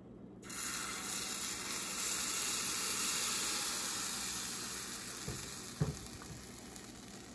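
Pancake batter sizzling as it is poured into a hot frying pan. The sizzle starts suddenly about half a second in and slowly dies down, with a couple of light knocks near the end.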